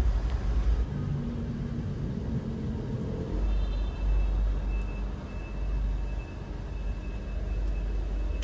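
Low, steady rumble of a running metal lathe, easing about a second in and returning a few seconds later, with a faint high whine alongside it in the later part.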